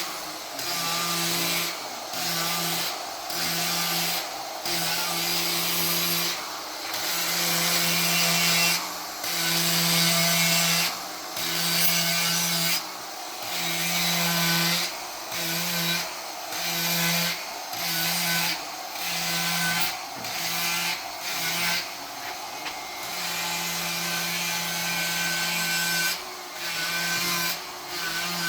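A power tool fitted with a wood-carving disc, grinding away wood as the sculpture is shaped. The motor keeps a steady hum while the disc cuts in repeated passes a second or two long, each broken off briefly as the disc is lifted from the wood.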